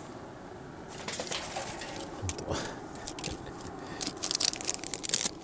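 A short low hum about two seconds in, then a quick run of crackling, rustling clicks in the last second and a half, like something being handled or crunched close to the microphone.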